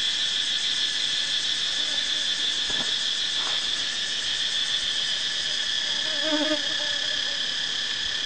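Steady, high-pitched chorus of insects with a continuous even drone, and a faint voice heard briefly about two-thirds of the way through.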